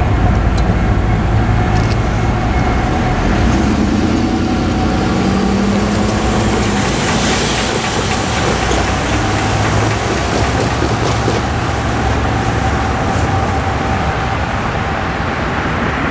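A car drives over the railroad crossing. Its engine and tyre noise build to loudest about seven seconds in, over a steady low rumble of traffic.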